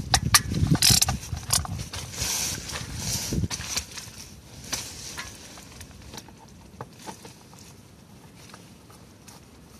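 Socket wrench on a long extension undoing a steel oil pan bolt on a Mercedes 722.6 automatic transmission: rapid clicking and rattling that stops about three and a half seconds in. A few scattered clicks and taps follow as the socket is pulled off and set on the next bolt.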